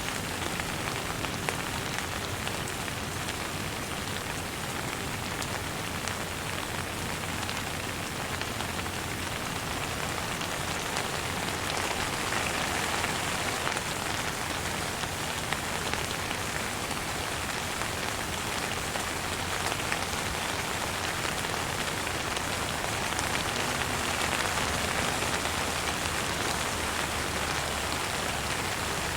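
Steady rain falling, an even hiss of drops hitting surfaces with scattered individual drip ticks, swelling slightly about midway and again near the end.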